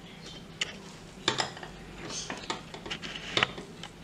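Metal spoon scooping thick mousse and knocking against glassware: several light clinks with soft scraping between them.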